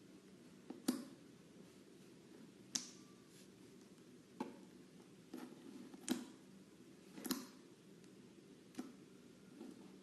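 Slime being pressed and poked, giving sharp clicky pops, about nine of them at uneven intervals, over a faint steady hum.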